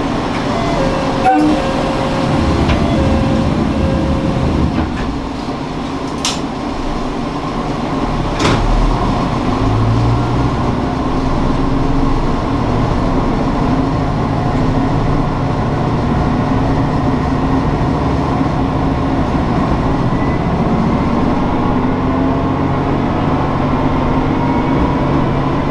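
Diesel railcar of the Shigaraki Kohgen Railway running along the line: steady engine hum and wheel noise on the rails, with a few sharp clicks in the first nine seconds. The engine's pitch rises slowly near the end.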